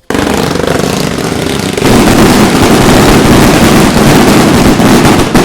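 Celebration cracker string of 3000 firecrackers going off in rapid, continuous crackling, with the bangs running together into one dense rattle. It gets louder about two seconds in.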